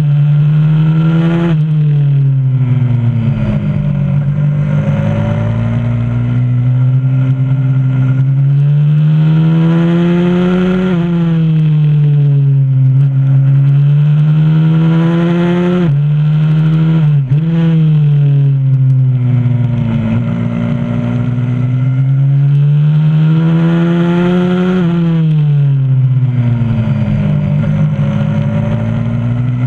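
Onboard sound of a 125cc supermoto pit bike's single-cylinder engine, revving up on the straights and falling back into the corners over and over. The pitch climbs and sinks every few seconds, with several sudden drops along the way.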